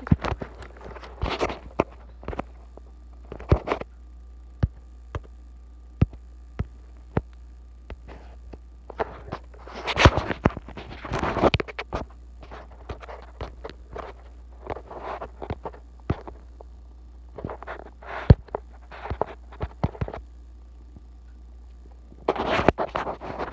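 Handling noise from a phone held close to its microphone: scattered clicks, knocks and rubbing, with louder clusters about ten seconds in and near the end.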